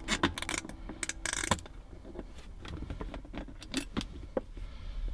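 Scattered clicks and small metallic rattles of a hand tool and loose fasteners as the T15 Torx bolts are backed out and the Corvette's console lid is lifted off, with a brief rattle about a second and a half in.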